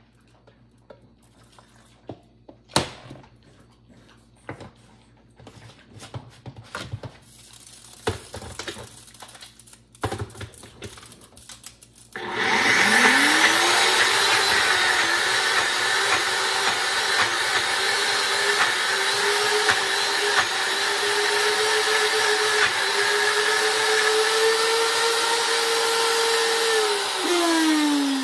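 Scattered knocks and clatter, then about twelve seconds in a NutriBullet Rx blender motor starts and quickly rises to a steady high whine, blending soaked kibble, peas and carrots with water. Near the end the motor is released and winds down with a falling pitch.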